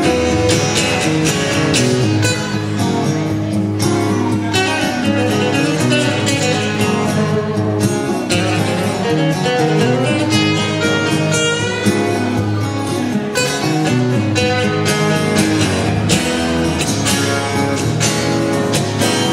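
Two acoustic guitars playing an instrumental break live, strummed chords with picked notes over them in a steady rhythm.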